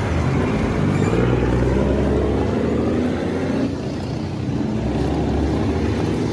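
Street traffic: a car's engine and tyres running close by, a fairly steady low rumble that dips briefly about four seconds in.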